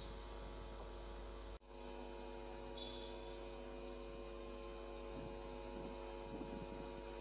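Faint steady electrical hum, a stack of even tones that holds level, with a brief dropout about one and a half seconds in.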